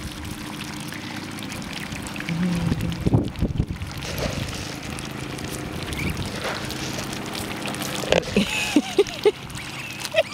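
Young Muscovy ducks feeding, their bills nibbling and dabbling at sunflower seeds with a patter of small clicks, and a few short soft calls about eight seconds in.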